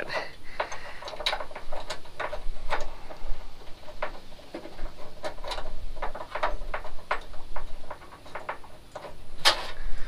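Light metal clicks and scrapes at irregular intervals as a screw is turned by hand into a hidden door hinge's threaded backing plate, with one louder click near the end.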